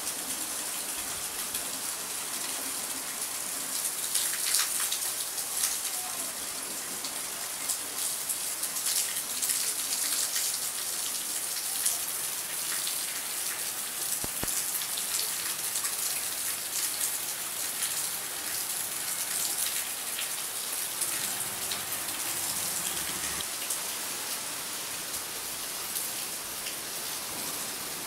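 Steady rain falling, a constant hiss with brief sharper drop hits here and there.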